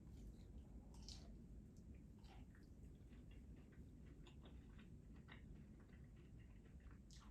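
Faint chewing close to the microphone: soft wet mouth clicks and smacks, scattered irregularly throughout.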